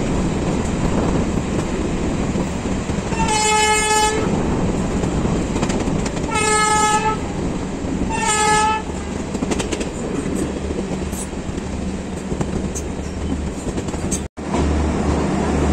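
Indian Railways train horn sounding three short blasts, the first about three seconds in and the last two close together, over the steady running noise of the moving train.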